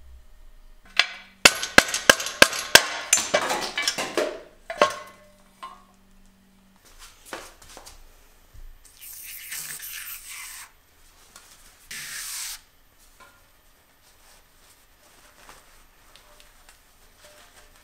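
A quick run of sharp metallic clinks and rattles as small frame pivot parts are handled and set down, then two short hissing bursts, and faint rubbing of a rag inside the bicycle's bottom bracket shell.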